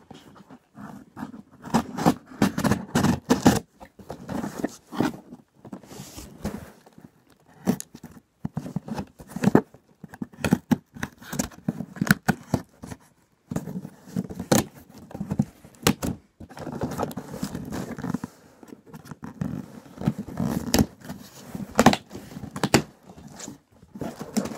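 A cardboard shipping box being opened with scissors: blades cutting through packing tape, with irregular scraping, crackling and knocks as the cardboard and its flaps are handled.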